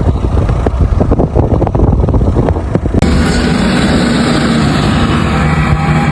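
Loud, rough low rumble with crackling wind buffeting on the microphone. About three seconds in it cuts abruptly to a steady vehicle-like hum with several held low tones.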